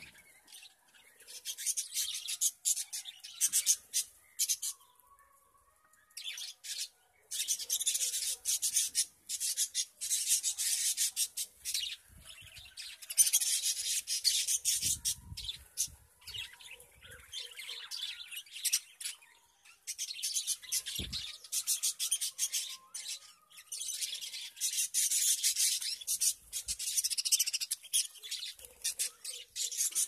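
A flock of budgerigars chattering: bursts of rapid, high-pitched chirps lasting a few seconds each, with short quieter gaps between them.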